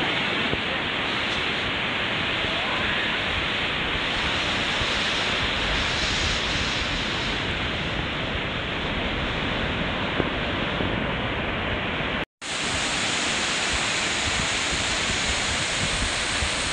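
Ocean surf breaking and washing up a sandy beach, a steady loud rush, mixed with wind blowing on the microphone. It drops out briefly about twelve seconds in, then continues.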